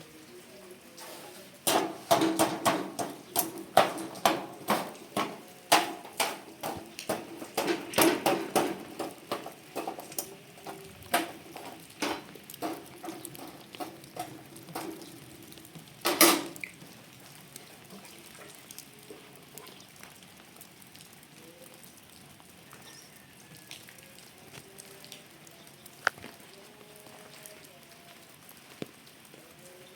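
A rapid, irregular series of sharp knocks and taps for about fifteen seconds, ending in one louder knock, followed by quieter sounds with a few faint pitched calls or tones.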